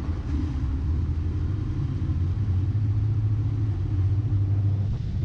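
Twin Suzuki 350 hp outboard motors running steadily under way, a low engine rumble over the rush of the churned-up wake.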